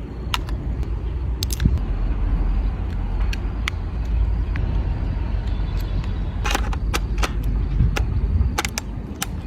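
Radio-controlled model helicopter flying: a steady low rotor rumble, with sharp clicks scattered through it.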